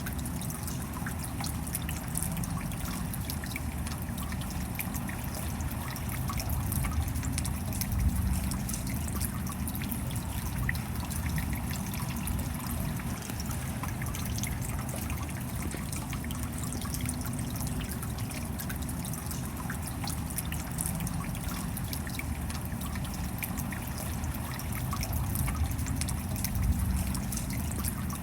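Steady rain, a dense continuous hiss made up of many small drop ticks.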